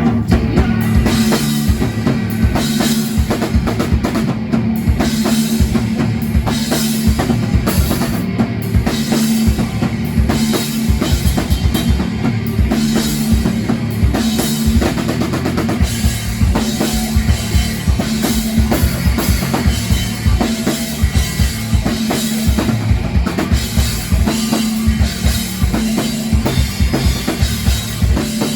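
Live rock band playing an instrumental passage, driven by a drum kit: rapid kick drum, snare and cymbals over a sustained bass line.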